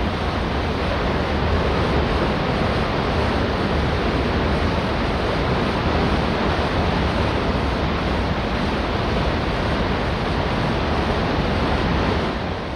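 Cross-channel ferry under way: a steady low rumble under a rushing of water and wind, starting to fade out near the end.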